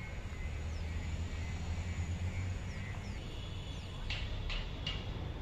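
Small birds chirping in short high calls, a few scattered at first and then three quick calls close together about four seconds in, over a steady low rumble.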